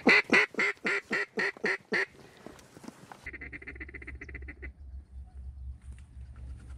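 Mallard quacking in a descending series of about eight loud quacks, each fainter than the one before, the pattern of a hen's hail call. About three seconds in comes a quieter, rapid chatter of feeding-chuckle sounds over a low wind rumble.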